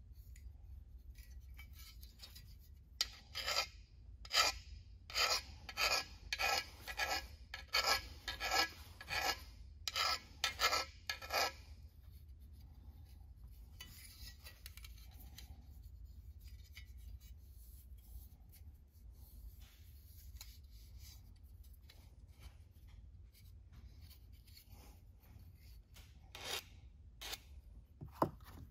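Hand file rasping along the edge of a thin aluminium aircraft part, deburring and gently rounding its corners so nicks and sharp points don't become stress risers. A run of quick strokes, about two a second, goes for several seconds, then thins to faint, sparse scraping, with a few stronger strokes near the end.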